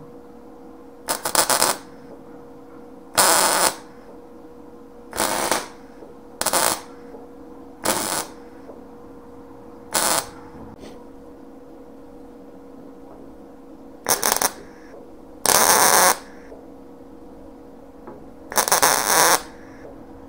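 MIG welder stitch-welding a sheet-steel patch panel: nine short bursts of arc, each about half a second long, with pauses of one to four seconds between them.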